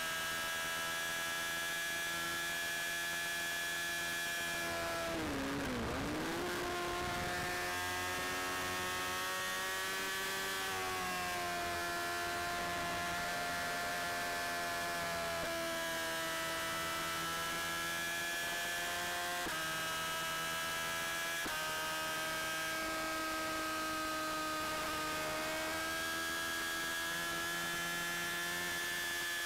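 Steady whine from a motorcycle cruising on the highway, its pitch shifting slowly with engine speed. It dips briefly and comes back up about five or six seconds in.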